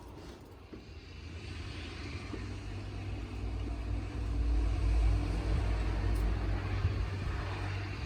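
A motor vehicle passing, its engine hum and tyre hiss swelling to a peak about five seconds in, then easing away.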